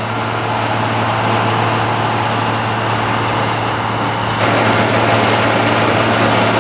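1975 Claas Senator 85 combine harvester working in wheat: its six-cylinder diesel engine and threshing machinery running steadily. The sound turns louder and brighter about four seconds in.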